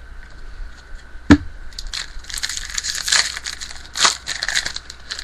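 Clear plastic trading-card pack wrapper crinkling and crackling as it is handled, the crackle dense and irregular through the second half. One sharp knock about a second in is the loudest sound.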